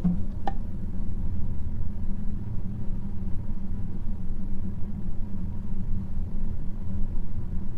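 A steady low rumble, with a faint tick about half a second in.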